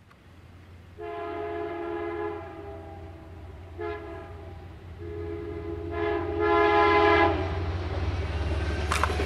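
Amtrak passenger train sounding its multi-chime air horn in separate blasts, two long and one short between them, the pattern of a grade-crossing warning. The train's low rumble swells as it passes near the end.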